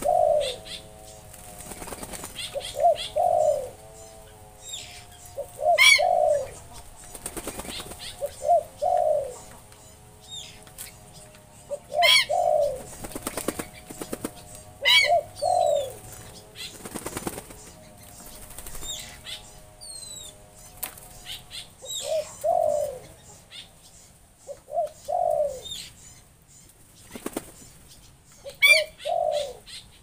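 Black-winged stilts and other aviary birds bathing in a shallow pool, splashing and flapping their wings in the water every few seconds. A low double call repeats about every three seconds, with a few higher chirps in between.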